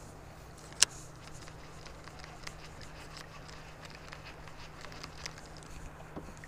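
Quiet handling of a fishing rod and baitcasting reel in a kayak: one sharp click about a second in, then scattered faint ticks over a faint low steady hum.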